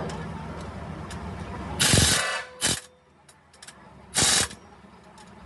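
Three short, loud hisses of escaping compressed air, about two seconds in, just after, and about four seconds in. Under the first part a low steady hum runs and stops right after the first hiss.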